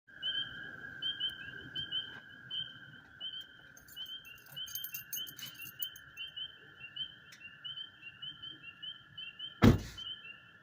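A constant, unbroken trill from an unidentified wetland creature, not spring peepers, with quick chirps repeating two or three times a second above it. A single loud knock comes near the end.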